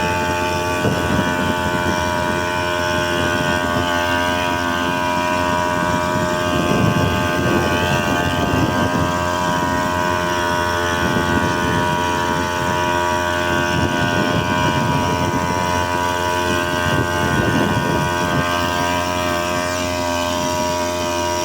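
Small brush-cutter engine fitted to a drum boat, running steadily at high throttle with an even, droning hum.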